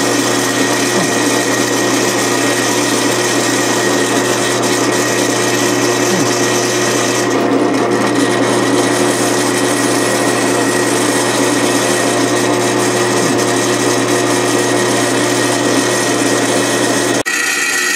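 Drill press running under load, its twist bit cutting through a metal block, with a steady motor hum and a rattle from the loose handle of a C-clamp on the drill table. The sound breaks off briefly near the end.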